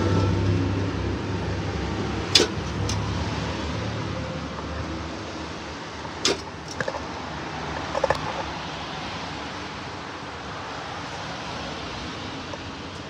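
Steady fan noise, easing off slightly, with a few sharp clicks and knocks about two, six and eight seconds in.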